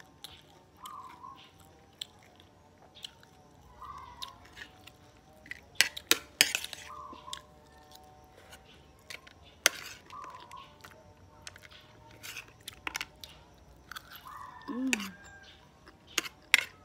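Close-up chewing and crunching of dried small fish with rice, with a metal spoon clinking and scraping on a ceramic plate in sharp, irregular clicks.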